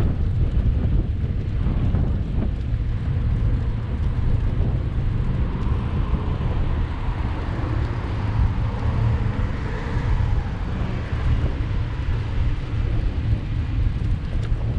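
Steady low wind noise on the microphone of a camera riding on a bicycle, mixed with the noise of car traffic on the road alongside.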